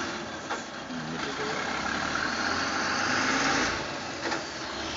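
Refuse truck engine running as the truck pulls away along the road, the noise swelling for a second or two and then easing, with a couple of short knocks.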